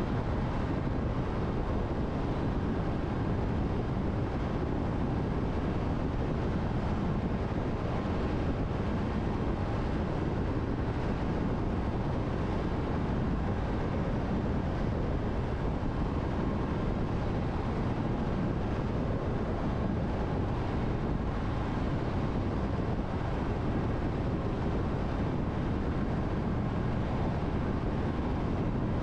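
Steady road noise of a car cruising at expressway speed through a tunnel: an even, deep rumble of tyres and wind that does not change.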